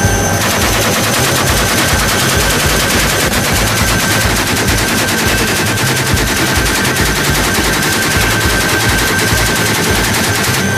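Helicopter door-mounted belt-fed machine gun firing one long continuous burst, starting about half a second in. The helicopter's rotor beat runs underneath.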